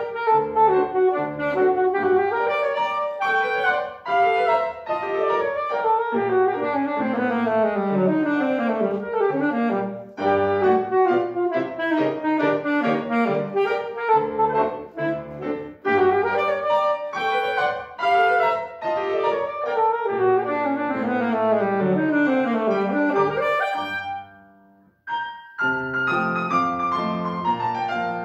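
Saxophone and grand piano playing together in a fast, busy passage full of rapid falling runs. The music breaks off briefly near the end, then picks up again.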